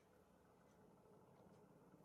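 Near silence: faint room tone with a low hum and a couple of faint ticks.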